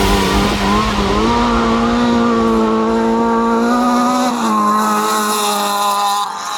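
Autocross racing buggy's engine held at high revs, a steady pitched note. The pitch steps up about a second in, drops back about four and a half seconds in, and fades near the end.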